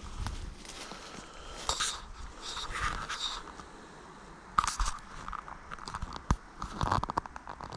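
Footsteps shuffling and crunching in dry fallen leaves, with irregular rustling and a few sharp clicks.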